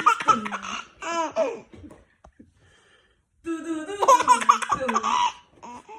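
Baby laughing in bouts of belly laughs and giggles: one bout at the start, a short pause, then a second bout from about three and a half seconds in.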